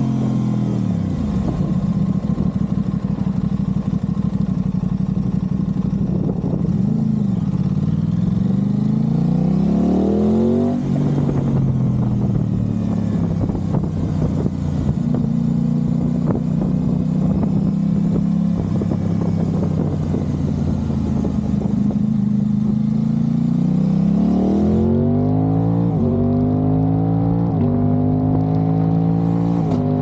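Aprilia RS660's parallel-twin engine through a Mivv Delta Race exhaust while riding. Revs drop at first, climb to an upshift about eleven seconds in, hold steady while cruising, then rise again near the end through several quick upshifts under hard acceleration.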